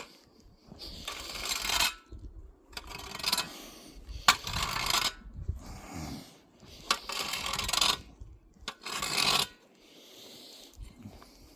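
Repeated scraping strokes, about five, each lasting about a second with short pauses between.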